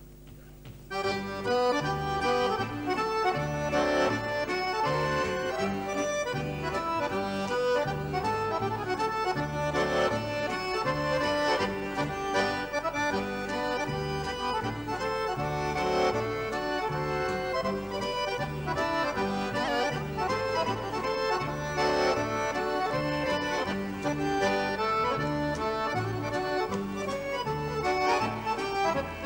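Two chromatic button accordions playing a lively schottische tune, backed by acoustic guitar and double bass keeping a steady beat; the music starts about a second in.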